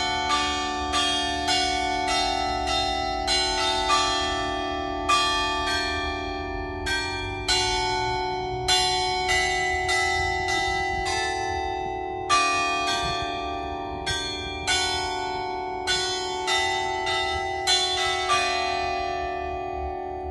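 Church bell in a Spanish church ringing, struck over and over at an uneven pace of about one to two strokes a second, each stroke leaving a long ringing hum. The strokes stop near the end and the ringing fades.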